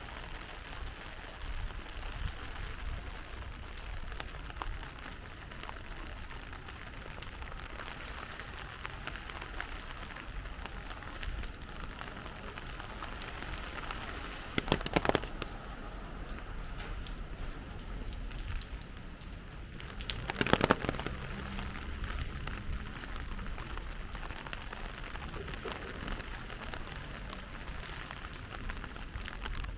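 Heavy rain falling steadily. Two brief clusters of loud sharp taps stand out, about halfway through and again a few seconds later.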